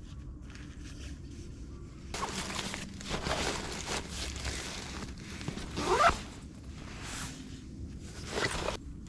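A zipper being pulled in several rasping strokes. The loudest, about six seconds in, rises in pitch as it goes.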